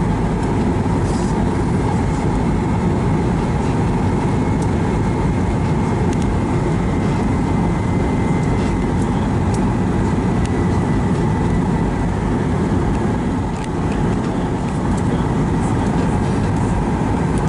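Steady cabin noise inside a Boeing 737-800 on final approach: the rumble of its CFM56 engines and the rush of air past the fuselage, with a faint high steady whine.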